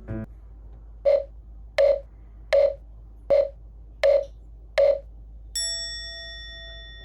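Six short, evenly spaced electronic beeps, then a single chime that rings and slowly fades.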